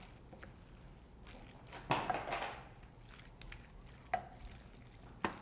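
Wooden spoon stirring a thick cream cheese, spinach and sausage mixture in a glass bowl: soft scraping, a louder scrape about two seconds in, and a few short knocks of the spoon against the glass, one with a brief ring.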